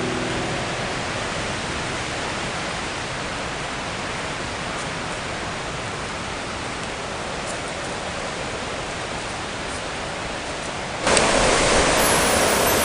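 Steady rushing noise of wind and waves on a lakeshore, with no tones in it. It jumps louder about eleven seconds in.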